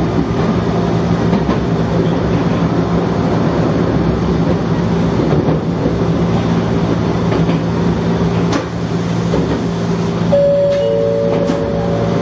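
Gakunan Railway electric train running along the line, heard from the front of the train: a steady running hum with rail noise. Near the end two steady tones come in, one just after the other, and hold.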